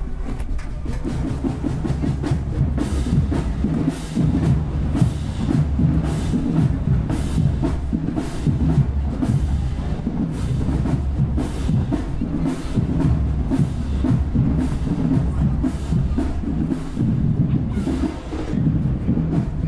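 Marching band drumline playing a cadence, with bass drums underneath and sharp accented hits about twice a second.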